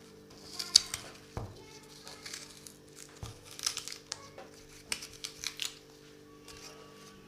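Irregular crinkling and rustling, like something being handled, with a few sharp clicks, over a steady low hum.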